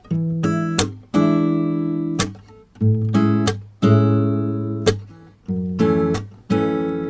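Background music: acoustic guitar strumming chords, each one struck and left to ring out, roughly one to two chords a second.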